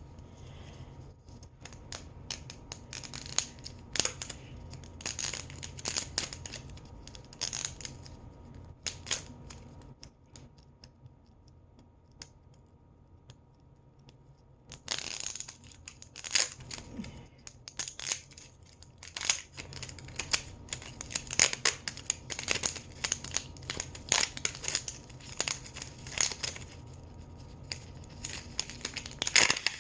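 Plastic wrapping being torn and crinkled off an LOL Surprise Miniverse ball, in irregular crackling bursts. A quiet pause of a few seconds comes about a third of the way through.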